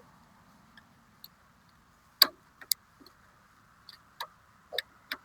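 10 mm wrench clicking and clinking against a lawn mower battery terminal bolt as it is worked loose: a few sharp, irregular metal clicks, the loudest about two seconds in.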